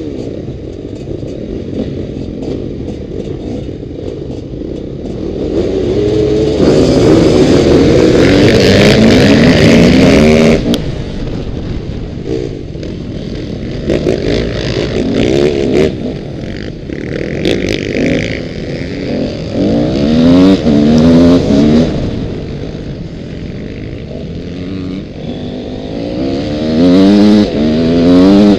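Motocross bike engines running and revving, a Honda dirt bike's engine loudest. Its pitch climbs in repeated sweeps as it accelerates up through the gears, with loud bursts of revving a quarter of the way in, again in the middle, and near the end.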